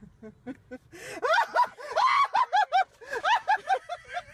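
A woman squealing and laughing: a quick run of high-pitched squeals starting about a second in.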